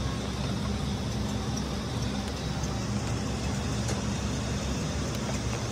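Workshop machinery running with a steady low drone that does not change.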